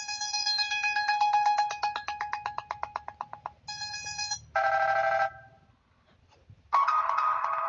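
Samsung Galaxy Pocket phone tones played one after another. A rapid trill of electronic beeps, several a second, fades out over about three seconds. Two short tones follow, then a pause of about a second, and another tone begins near the end.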